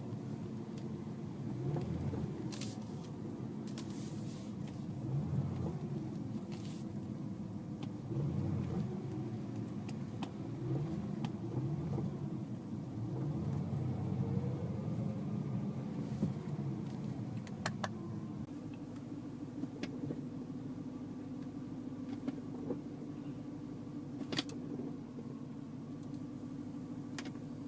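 BMW M3 with a dual-clutch transmission (DCT) in second gear, its throttle applied and released quickly so the engine rises and falls over and over, with a clunking from the driveline that the owner suspects is the clutch. After about 18 seconds the engine settles to a steady idle and a few sharp clunks come as the DCT is shifted between neutral, drive and reverse, which the owner finds overly loud.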